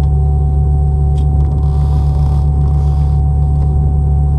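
Boeing 717 cabin noise: a loud, steady low rumble with a constant whine over it, briefly joined by a soft hiss about halfway through.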